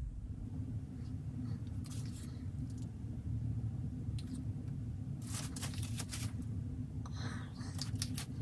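Steady low hum with a few short rustles and taps from paint-pouring work over plastic drop sheets, a cluster of them about five to six seconds in.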